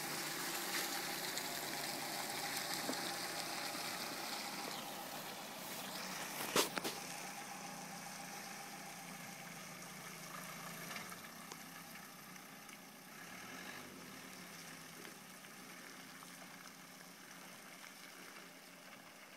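Dacia Duster 4x4's dCi diesel engine running as the car drives away along a muddy track, fading steadily. A single sharp click about six and a half seconds in.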